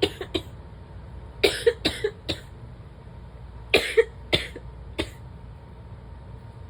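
A person coughing in short bouts: two coughs at the start, a run of four about a second and a half in, then three more and a last single cough about five seconds in.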